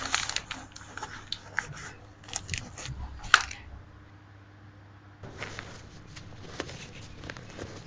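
A string of small sharp clicks and taps, the loudest a little over three seconds in, then a quieter pause before fainter ticking resumes after about five seconds.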